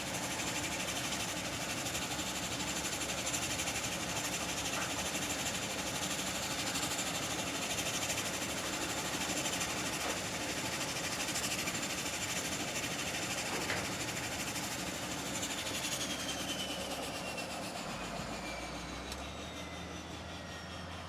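Airplane engines during takeoff: a dense roar with a steady high whine. After about fifteen seconds the whine starts to fall in pitch and the sound slowly fades as the plane moves away.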